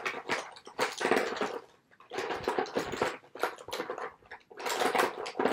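Lipstick tubes clattering and rustling in a cardboard box as a hand rummages through them, in several bursts with short pauses.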